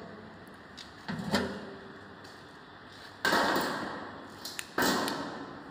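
Metal lid of an arc welding transformer's case being lifted off and set aside: a softer knock about a second in, then two sudden clanks, each dying away over about a second.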